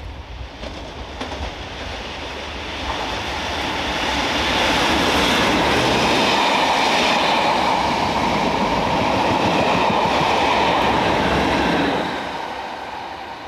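Class 37 diesel locomotives with English Electric engines hauling a test train through a station at speed. The engine and wheel noise builds as the train approaches, stays loud and steady as the locomotive and coaches pass close by, then fades after about twelve seconds.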